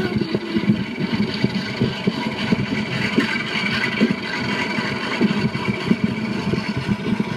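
Train running slowly through a yard, a steady rumble with irregular knocks from the wheels over rail joints and points, played back through laptop speakers.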